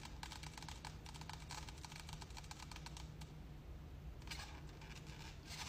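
Faint, rapid clicking and crackling of a Doberman's teeth chewing a plastic cup held in its mouth. The clicking thins out about three seconds in and picks up again for a moment a second later.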